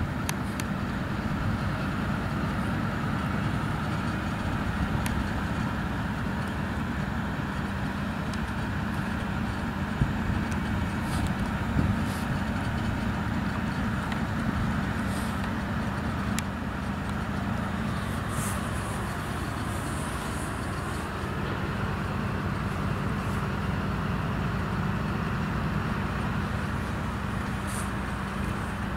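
Vossloh G1206 diesel locomotive engine running with a steady low drone. A couple of faint knocks come about ten and twelve seconds in.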